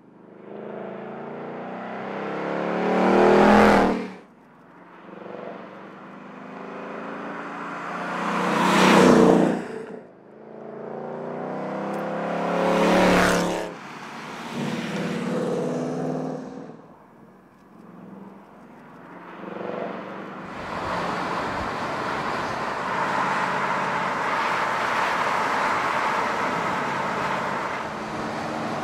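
2018 Ford Mustang convertible's V8 driving past three times, each pass swelling loud and then falling away, followed by two fainter passes. From about twenty seconds in, a steady road and wind noise as the car cruises along.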